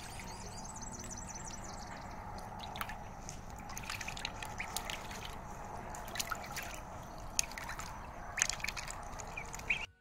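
Ducklings splashing and paddling in a metal tub of water, the water sloshing with frequent small splashes and a few short duckling calls. The sound cuts off suddenly near the end.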